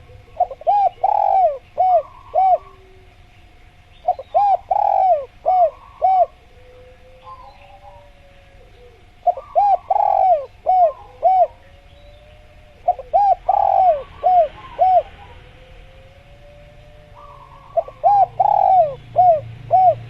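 Spotted dove (tekukur) cooing: five phrases of several quick coos each, about every four seconds, over a thin steady tone, with faint chirps from smaller birds.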